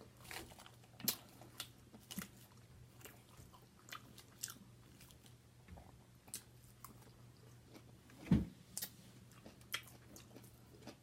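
A person chewing and biting food close to the microphone: scattered short mouth clicks and smacks, with one louder thump about eight seconds in.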